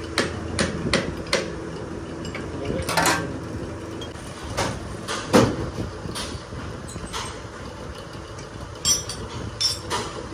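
Irregular knocks and clanks, about a dozen, the loudest about halfway through, over a steady hum, consistent with metal parts being handled and struck during an excavator boom pin repair.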